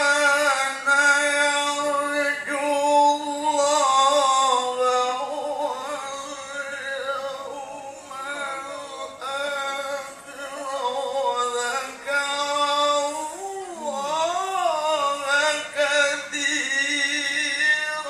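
A man reciting the Quran in melodic tilawah style, amplified through a handheld microphone. He holds long ornamented notes that waver and bend in pitch, with short breaths between phrases.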